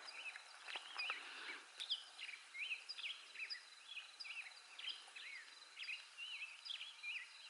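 Faint wild birds chirping: many short whistled notes that rise and fall, a few a second, over a quiet outdoor hush with a thin steady high tone behind.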